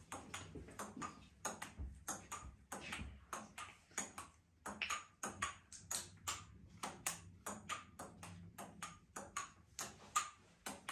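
Table tennis rally: a ping-pong ball clicking back and forth off paddles and a wooden tabletop, about four quick, sharp ticks a second.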